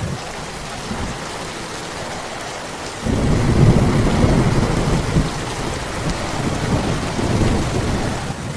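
Steady rain falling. About three seconds in, a long low rumble of thunder joins it.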